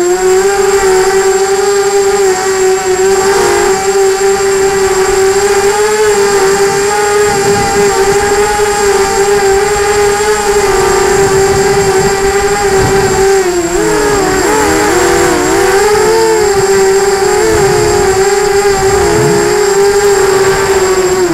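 An FPV quadcopter's electric motors and propellers whine, heard through its onboard camera, with wind buffeting the microphone. The pitch holds steady, then wavers up and down through the second half as the throttle changes.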